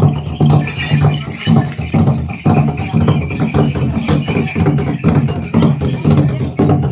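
Music with a steady percussion beat of about two strokes a second over a sustained low tone.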